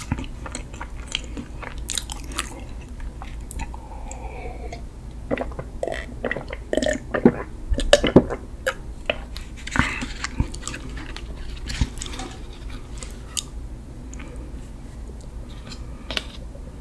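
Close-miked chewing of a chocolate-glazed sponge mini cake (Freddi Dark Dolcetto), with wet mouth clicks and smacks. Milk is sipped from a glass jar about halfway through.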